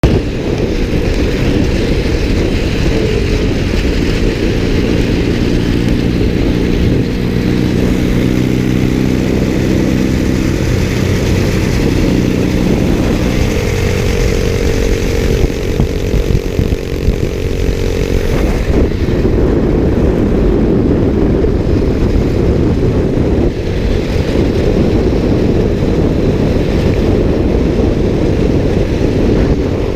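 Motorcycle engine running at riding speed under heavy wind noise, its pitch holding steady and then shifting a few times.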